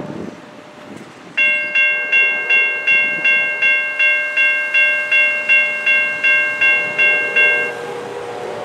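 Railroad grade-crossing warning bell ringing steadily, about three strikes a second, while the crossing gate arms go up after the train has cleared. It stops about eight seconds in, and a car passing over the crossing follows.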